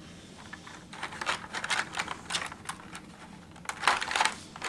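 Hard plastic board-game miniatures clicking and clattering against each other as hands rummage through a pile of them: a run of irregular small clicks, loudest about four seconds in.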